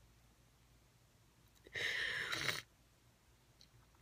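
A woman crying, drawing one noisy, breathy sniffle about two seconds in; otherwise near silence.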